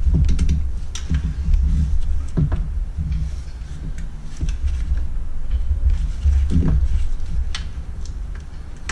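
Scattered clicks and light knocks of hands working a radiator cooling fan assembly and its fittings into place in a car's engine bay, over a low rumble. The fan is a poor-fitting aftermarket part that will not seat properly.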